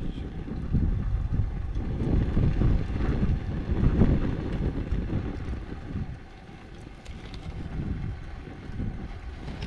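Wind buffeting the microphone in gusts, a rumbling rush that eases about six seconds in.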